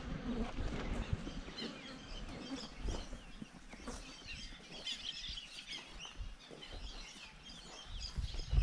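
Birds chirping and calling, many short scattered calls, with a few faint clicks.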